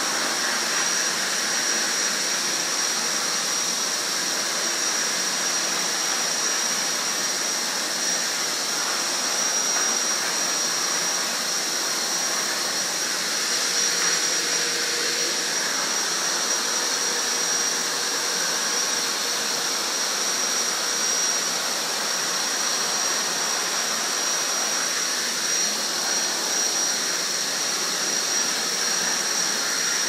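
Vacuum cleaner running steadily, a high whine over the rush of its airflow, as it is used on a dog's coat.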